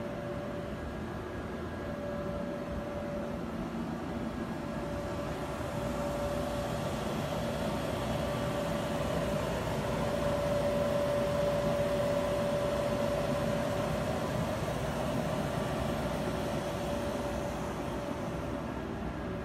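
Electric inflatable blower running steadily: a constant hum over rushing air, growing louder toward the middle and easing off again.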